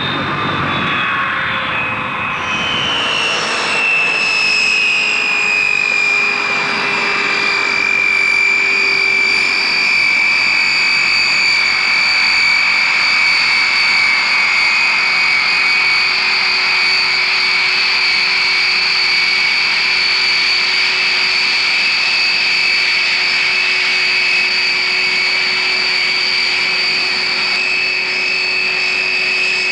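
Rolls-Royce Dart turboprop engines of a taxiing Vickers Viscount, a loud, steady high-pitched whine over propeller and engine noise; the whine drops slightly in pitch over the first few seconds and then holds steady.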